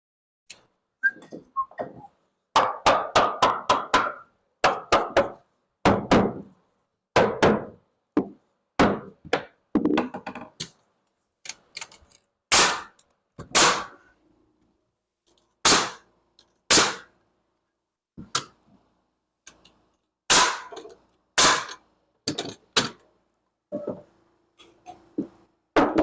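A hammer driving nails into wood framing: a quick run of blows about two and a half seconds in, then single blows and short pairs spaced a second or two apart.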